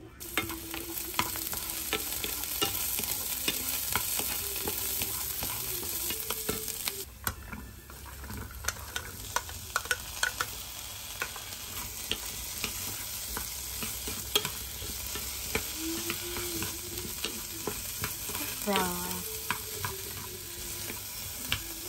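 Food frying in a non-stick pan: an eggplant omelette sizzling steadily, then, after a break about a third of the way in, chopped okra sautéing while a wooden spatula stirs it, with frequent clicks and taps of the spatula against the pan.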